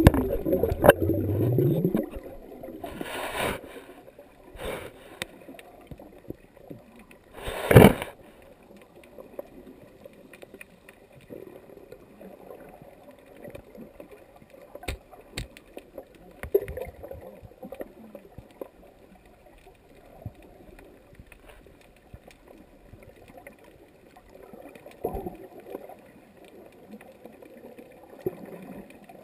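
Underwater sound heard through a GoPro's waterproof housing: water churning and gurgling as the camera goes under, then a few knocks on the housing as it is handled, the loudest about eight seconds in. After that, a faint steady underwater hiss with scattered small clicks.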